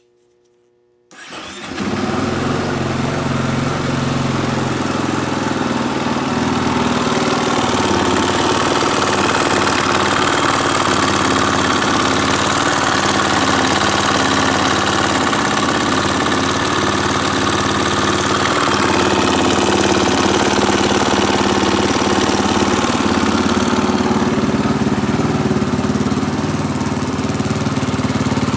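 A 2017 KTM 450 EXC-F Six Days single-cylinder four-stroke engine starts about a second in, then runs steadily at idle. It carries a knocking noise that the owner doubts is normal; metal shavings were found in its oil and the cause is unknown.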